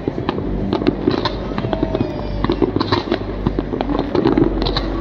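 Fireworks going off: a dense, irregular run of sharp pops and crackles from bursting shells.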